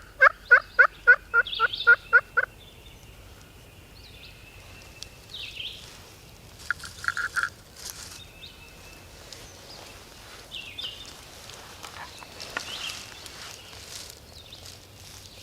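A run of about nine loud turkey yelps, roughly three or four notes a second, over the first two and a half seconds. A short, fainter burst of turkey calling follows about seven seconds in, with faint songbird chirps and some rustling later.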